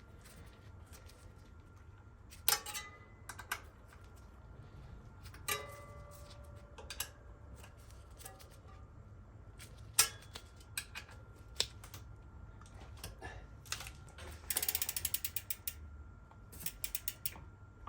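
Ratchet clicking in short rapid runs, with scattered single clicks and taps, as the brake caliper mounting bolts are tightened.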